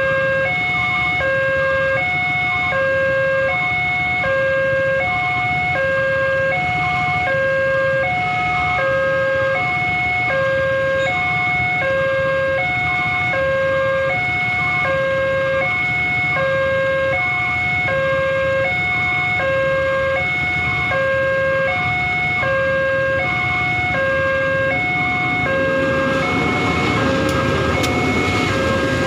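Railway level-crossing warning alarm sounding a steady electronic two-tone hi-lo pattern, about one high-low cycle every second and a half, over the low rumble of idling traffic. Near the end the rumble and rattle of a diesel locomotive and passenger coaches passing over the crossing rise beneath the alarm.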